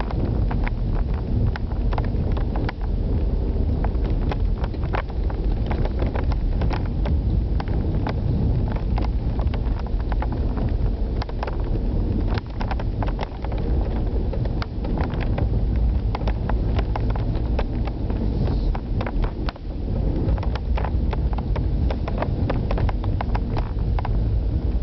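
Car engine and road noise from inside the cabin on a broken asphalt and gravel track, with frequent sharp knocks and rattles as the car runs over the rough surface.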